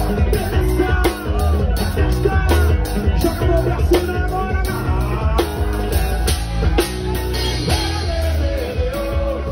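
Live band playing: a man singing into a microphone over an electric guitar and a steady drum beat.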